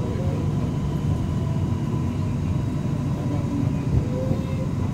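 Steady low rumble inside a Shenzhen Metro Line 3 CRRC Puzhen train car as it runs, with faint whining tones that slide in pitch from its IGBT-VVVF traction drive.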